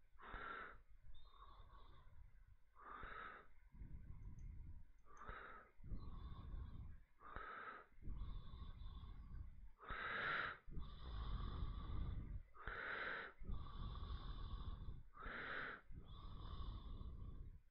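A person breathing slowly and regularly, about one breath every two and a half seconds.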